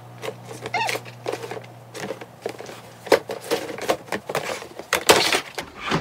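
Irregular plastic knocks, clunks and scrapes as a white plastic stacking drawer unit is handled and turned around, busiest in the second half.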